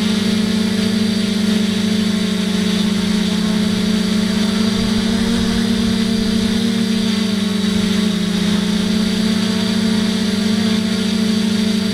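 Onboard sound of an FPV quadcopter's electric motors and propellers: a steady buzzing hum that sags slightly in pitch about eight seconds in.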